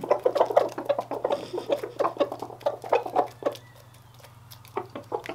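Roosters clucking in short, soft calls while pecking treats from people's hands, with quick pecking taps. The sounds thin out for about a second after three and a half seconds, then pick up again.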